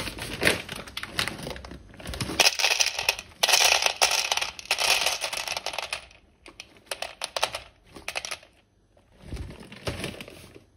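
Dry penne pasta pouring into a plastic mixing bowl on a kitchen scale, a dense rattle of many hard pieces striking the plastic and each other. It thins to scattered clicks, and a few more pieces rattle in near the end.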